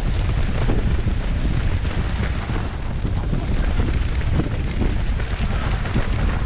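Wind buffeting the microphone of a camera carried by a runner, a steady low rumble.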